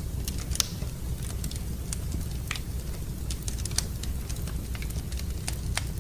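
Wood fire crackling in a fireplace: irregular sharp snaps and pops, about two a second, over a low steady rumble.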